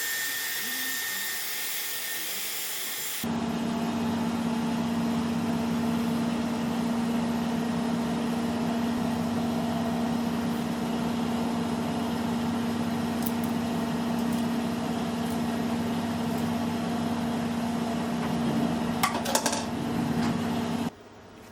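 An electric appliance motor runs steadily with a strong, even hum and cuts off suddenly about a second before the end. Before it starts, there are about three seconds of a higher hissing noise.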